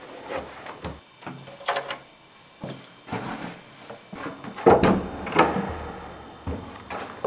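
Shoes being pulled on and footsteps scuffing on a doormat, then a front door being unlatched and swung open. Irregular knocks and rattles, loudest about five seconds in.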